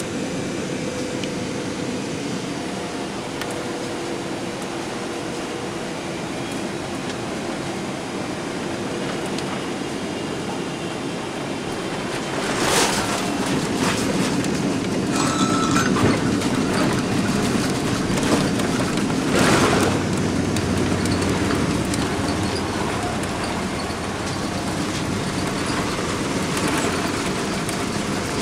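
Cabin noise inside a Boeing 777-300ER on final approach: a steady rush of air and engines. About halfway through, a thump marks the touchdown, and the noise grows into a louder rumble as the airliner rolls out on the runway, with another thump about two-thirds of the way through.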